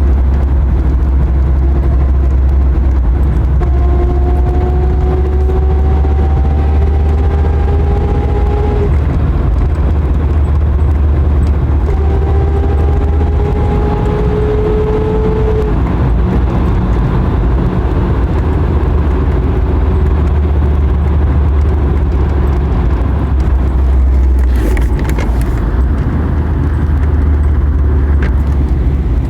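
TDI turbodiesel car running with a steady low rumble. Twice a whine rises slowly in pitch as it accelerates: the abnormal noise under acceleration.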